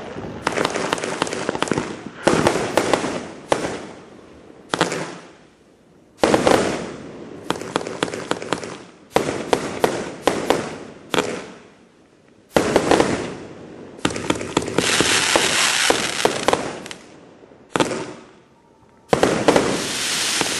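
A 50-shot, 24 mm fan-shaped consumer firework cake firing in volleys of rapid shots and crackling breaks. Each volley lasts a second or two, with brief lulls between them, and there is a stretch of steady crackling hiss about three-quarters of the way through.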